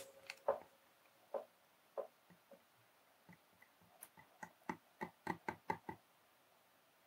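Faint, scattered small clicks of metal tweezers and a soldering iron tip touching a tiny surface-mount resistor and its circuit board. A few lone clicks at first, then a quicker run of about four a second for a couple of seconds near the end.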